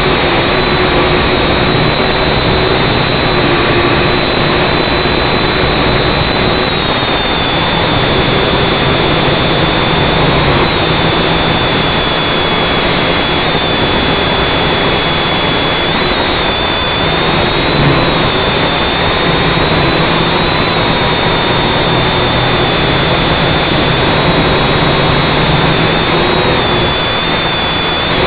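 Syma X5C quadcopter's four brushed motors and propellers, heard from the onboard camera, running with a steady loud buzz and a high whine. The whine steps up and down in pitch several times as the motors speed up and slow down in flight.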